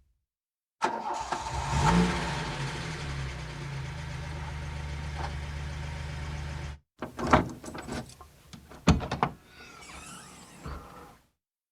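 A car engine starts up abruptly about a second in and runs steadily, then cuts off suddenly. A few seconds of sharp clicks and knocks follow.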